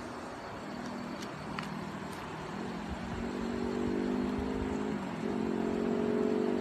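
A motor vehicle's engine running and getting louder about halfway through, its pitch stepping up twice, over a steady background hiss.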